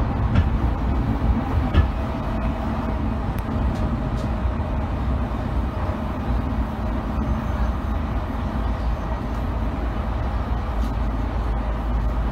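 Running noise of an electric commuter train at speed, heard from inside the passenger car: a steady low rumble of wheels on rail with a few faint clicks from the track.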